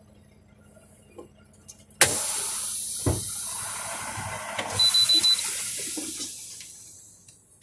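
Air hissing out of a semi truck's air brake system: a sudden loud hiss about two seconds in that fades away over about five seconds, with a low thump just after it starts.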